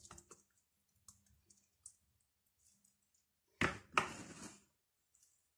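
Quiet kitchen handling noises on a granite countertop: a few faint clicks, then, a little over three and a half seconds in, a sharp knock and about a second of scraping rustle as a small silicone bowl of cornstarch is picked up and moved.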